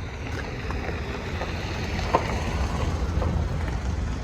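Wind buffeting the microphone as a low, fluttering rumble, with a few faint ticks and one sharp click about two seconds in.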